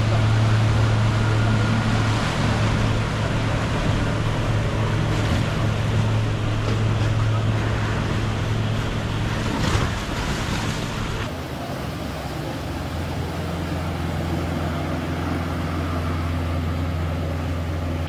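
Tour boat engines running with a steady low drone over the hiss and wash of their wake. About eleven seconds in the sound shifts to a lower, quieter engine drone.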